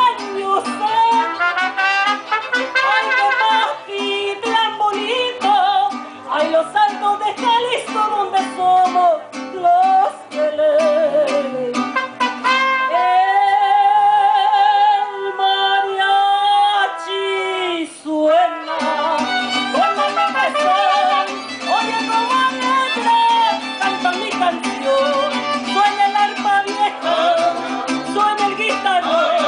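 Live mariachi song: a woman sings with strong vibrato over a mariachi band with vihuela and guitarrón. Near the middle she holds one long high note for about four seconds, then goes back to the melody.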